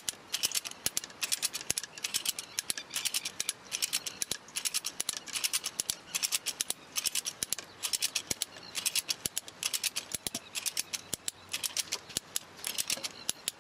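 Strainrite XT1 wire strainer's ratchet clicking as its handle is cranked back and forth, winding fence wire onto the spool to tension it. The strokes come steadily, about one and a half a second, each a quick run of sharp clicks from the pawl riding over the gear teeth.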